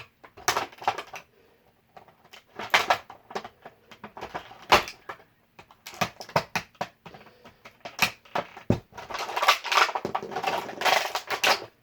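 Toy packaging being handled and emptied: irregular crinkling of plastic and cardboard with clicks and taps as the parts come out of the box.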